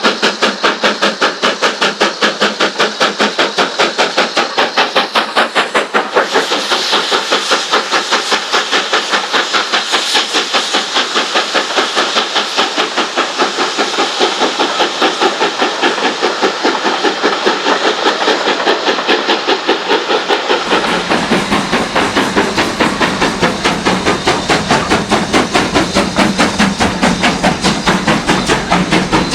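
BR Standard 4 tank steam locomotive working under load, its exhaust beating rapidly and evenly, several beats a second, over a steady steam hiss. The hiss grows louder about six seconds in, and a deep rumble joins about two-thirds of the way through.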